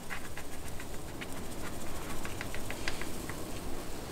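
WWS electrostatic static grass applicator switched on and being shaken over the layout: a steady low hum with many irregular light ticks and crackles.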